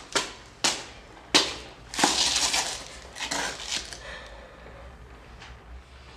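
Hurried footsteps on a wooden staircase: a run of sharp knocks with a longer scuffing burst about two seconds in, then fading away.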